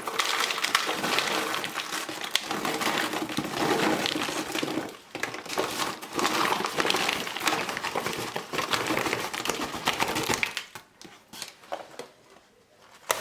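Paper microwave-popcorn bag crinkling and rustling as it is handled, with popped corn shifting inside. The crinkling is dense for about ten seconds, then dies down to a few faint rustles near the end.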